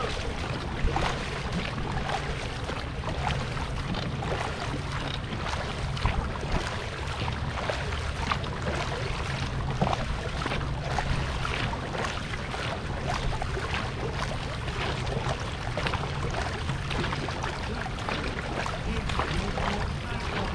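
Dragon boat paddles dipping and splashing as the crew strokes, over a steady rush of water.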